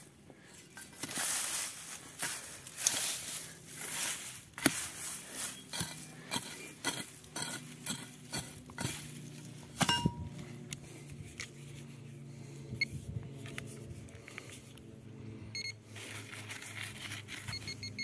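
Digging out a metal detector target by hand: a metal tool scraping and clinking in stony soil, with many sharp knocks over the first half and one hard strike about halfway. Near the end the metal detector gives short repeated beeps as it is passed over the target.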